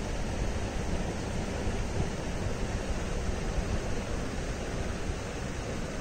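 A running aquarium filter making a steady, even rushing noise as it churns the water.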